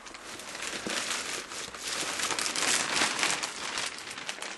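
Plastic or paper mail packaging being crinkled and torn open by hand, in a dense run of crackling that is loudest in the middle.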